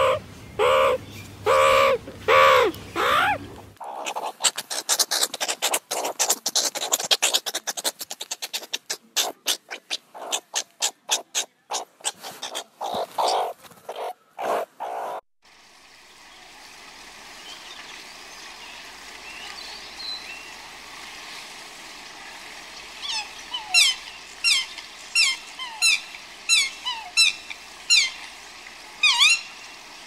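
A meerkat calls in a string of short, loud, repeated yelps, followed by a long spell of rapid clicking chatter. About halfway through the sound changes to a quieter steady outdoor background, and near the end a small bird sings a run of quick downward-sweeping chirps, about one a second.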